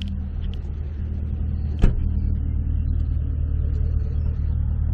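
Holden Commodore SSV V8 engine idling steadily, with a single sharp thump about two seconds in.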